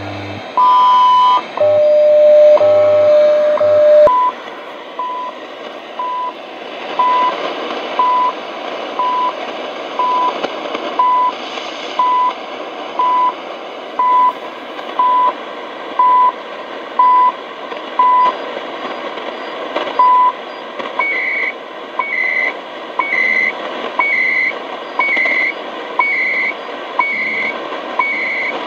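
CHU Canada shortwave time signal heard through a Realistic DX-60 receiver's speaker over steady static. It is a short 1 kHz beep once a second, with a longer tone and a brief lower tone near the start. One beep is missing about 19 seconds in, and from about 21 seconds each beep is followed by a higher-pitched data burst, the station's digital time code.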